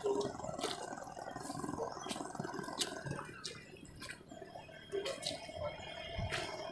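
Quiet open-air ambience by a weedy pond, with a faint steady hum and scattered light clicks and ticks, about a dozen, irregularly spaced.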